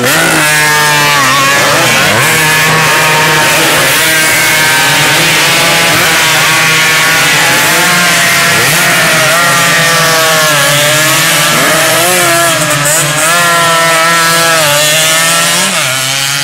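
Several two-stroke 150cc sport racing motorcycles passing close together at full race pace, their engines loud, buzzing and overlapping. The revs drop and climb again and again as the bikes slow for the corner and accelerate away.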